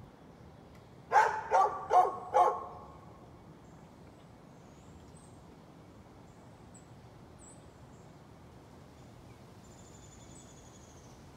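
A dog barking four times in quick succession, about a second in. Afterwards there are only a few faint, high chirps.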